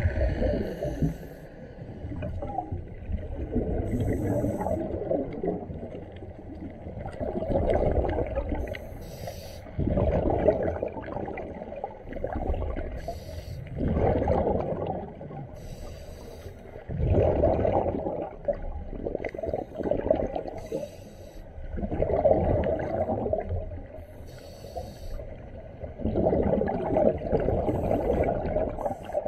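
A scuba diver breathing through a regulator underwater: a short hiss on each inhalation, then a longer bubbling of exhaled air, about seven breaths, one every four seconds or so.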